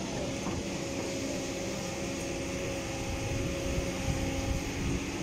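Kobelco crawler excavator's diesel engine running under load as the boom and arm move, with a steady whine over the engine rumble that stops near the end.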